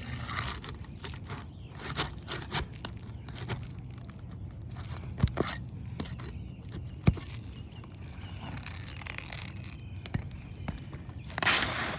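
Asphalt roof shingles being worked loose and pulled free: scraping with scattered sharp knocks, the sharpest about seven seconds in, and a longer rough scrape near the end as the creased shingle comes out.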